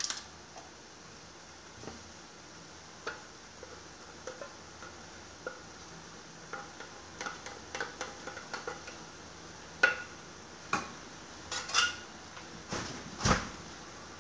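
Kitchen clatter: dishes and utensils clinking and knocking in scattered, irregular strikes. The strikes come thicker and louder in the last few seconds.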